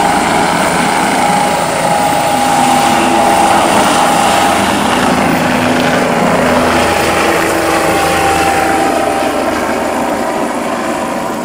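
Air-ambulance helicopter lifting off and flying away: loud rotor noise with a steady turbine whine, fading over the last couple of seconds.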